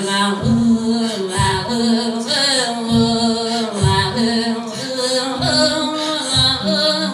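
Sami joik and Inuit throat singing performed together. One woman's voice holds long, wavering melodic notes, and low throaty pulses come underneath about once a second.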